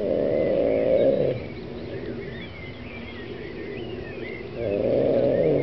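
An animal calling twice, two loud low rough calls of about a second and a half each, roughly four and a half seconds apart, each falling in pitch at the end. Birds chirp steadily behind them.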